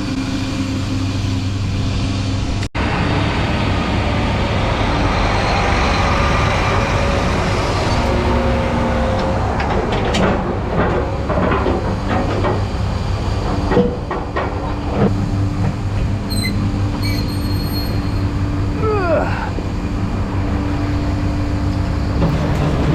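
Grain dryer running: its fan blowing air through the corn to cool it, a steady mechanical drone with a low hum. Scattered metallic knocks and clanks come through the middle, and a brief squeal near the end.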